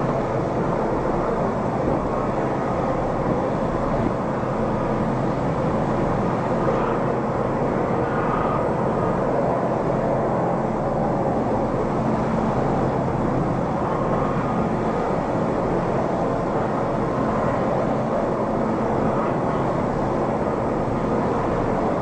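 Steady rushing noise of wind and heavy seas breaking around a ship's bow.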